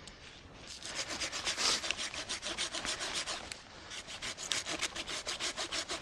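Hand saw cutting through dead wood in rapid back-and-forth strokes, in two runs with a brief pause about three and a half seconds in.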